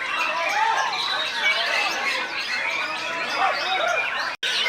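Many caged songbirds singing at once in a competition, a dense mix of chirps, whistles and trills overlapping one another. The sound cuts out for an instant near the end.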